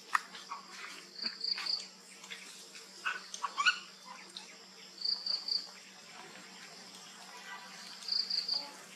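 A high, quick triple chirp repeating three times, every three to four seconds, with a few sharp clicks and short squeaks in between.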